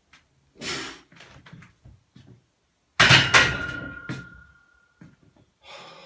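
A 92.5 kg barbell racked into the steel hooks of a power rack: two loud metal clanks about three seconds in, a lighter knock just after, and a ringing tone that fades over the next second and a half. A shorter rush of noise comes just under a second in.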